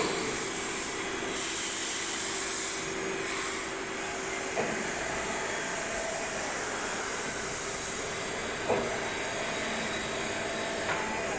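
Hydraulic power unit of a butt fusion machine running with a steady mechanical hum, broken by four short clicks as its control lever and valves are worked; the hum's tone shifts a little after some of the clicks.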